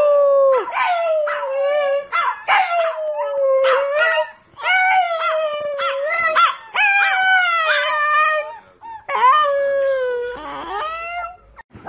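A dog howling: a run of long howls, each lasting a second or two and sliding slightly down in pitch, with short yelps between them.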